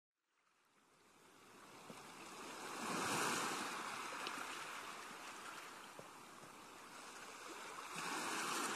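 Gentle sea water washing and lapping, fading in from silence after about a second, swelling about three seconds in and again near the end.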